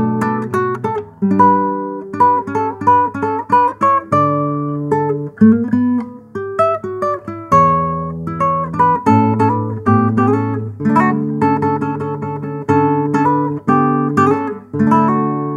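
Nylon-string classical guitar played solo and fingerpicked: a hymn melody over bass notes. Near the end a chord is struck and left to ring.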